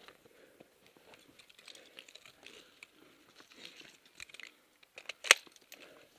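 Rustling and crinkling handling noise from a moving airsoft player's gear and clothing, with one sharp crack about five seconds in.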